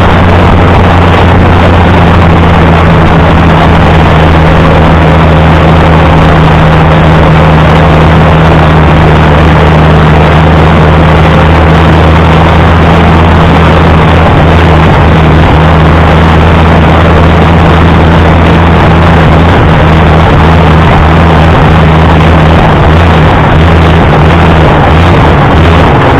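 Allis-Chalmers D19 tractor's six-cylinder engine running steadily and loud, close up; its pitch wavers slightly near the end.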